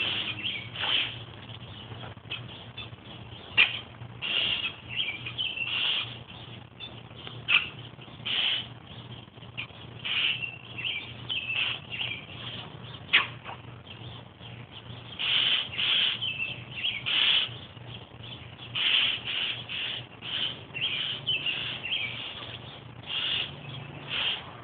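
Pet bird chattering: a run of short, high calls in irregular bursts, some drawn out a little longer.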